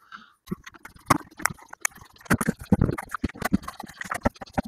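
Irregular clicks and knocks of a screwdriver and hands working at the screws on the top of a plastic cordless-tool battery case.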